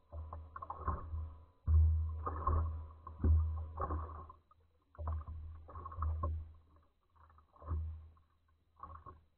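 Waves slapping irregularly against the hull of a fishing boat, in uneven bursts about a second apart with a deep low thud in each.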